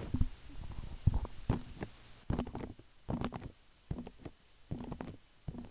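A string of soft, low thumps at irregular spacing, about one or two a second, over a faint steady high-pitched whine.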